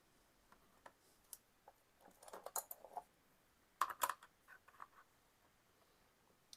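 Faint light clicks and taps of paintbrushes and their protective caps being handled and tried in the brush holder of a wet palette, in a few scattered clusters, the loudest about four seconds in.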